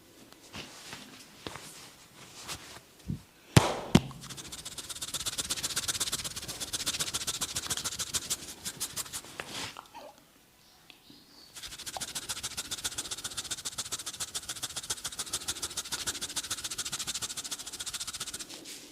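A barber's hands massaging a head: two sharp cracks about three and a half seconds in, then fast, even, rhythmic strokes of hands working over the head and hair. They pause briefly around the middle and then run on at the same quick pace.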